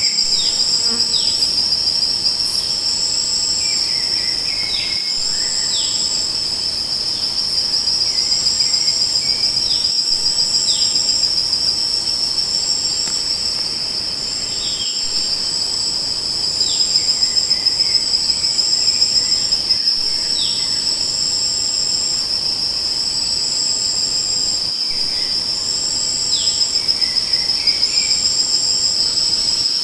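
Crickets and other insects chirping: a steady, high, continuous trill with a second, higher insect pulsing in short bursts above it. Short falling chirps come and go now and then.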